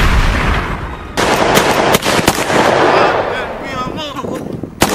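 A run of gunshots, about four sharp shots in a few seconds, each followed by a long echoing tail that fades away.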